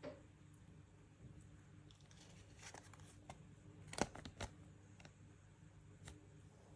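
Faint handling sounds: a folded paper toy leaflet being unfolded with light crinkling, and a few small sharp clicks and taps as a small plastic figurine is handled, the sharpest about four seconds in.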